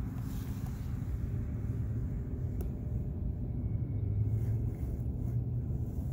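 Steady low outdoor rumble, with nothing higher-pitched over it.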